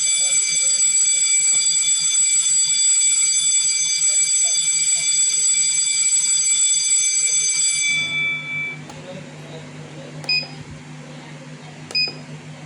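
School bell ring tone from an automatic bell scheduler, a steady shrill electric-bell tone held for about eight seconds, sounding the end of the assembly announcement. It stops suddenly, leaving a low hum and two short electronic beeps near the end.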